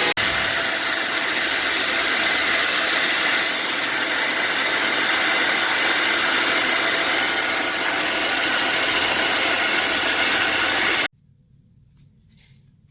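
Subaru Tribeca B9 engine running, with a loud, steady whirring hum from the accessory belt's tensioner pulley: the tensioner bearing is worn. The sound cuts off abruptly near the end.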